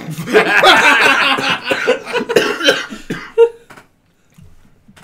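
A man coughing hard and loud right at the microphone, a fit of about three seconds, with a short last cough just after.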